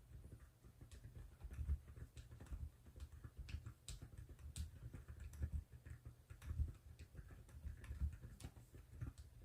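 Mechanical keyboard with Keychron Banana switches being typed on: irregular keystrokes, each a faint high click over a dull low knock.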